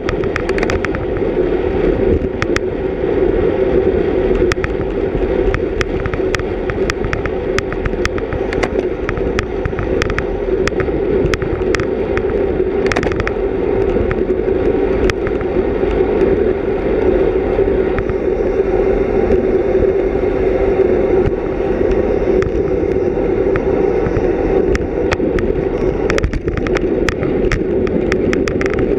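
Steady, muffled rush of wind and road noise from riding a racing bicycle, heard through a GoPro Hero 3+ housing, with scattered sharp clicks and ticks throughout.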